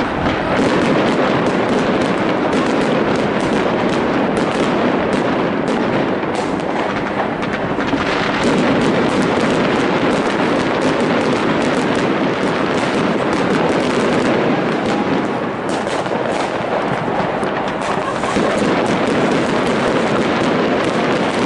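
Many fireworks going off at once: rockets bursting, with crackling and banging that blend into a dense, unbroken barrage.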